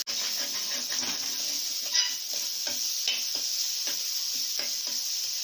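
Coarsely ground green chilli, garlic and ginger paste sizzling in hot oil in a steel kadhai, with a spoon stirring and scraping it around the pan. One sharper clink about two seconds in.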